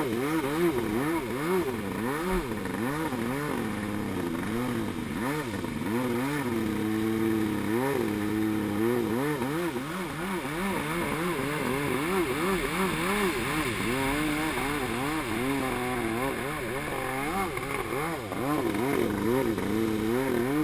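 Stand-up freestyle jet ski's engine running hard and revving up and down under constant throttle changes, about two rises and falls a second. It holds a steadier pitch for a second or two about a third of the way in.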